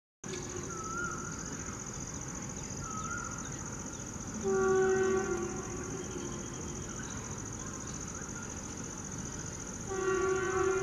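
Horn of an approaching WAP4 electric locomotive, sounded twice: a blast of about a second near the middle, and another starting near the end. Between the blasts a cuckoo calls a short whistled note every couple of seconds.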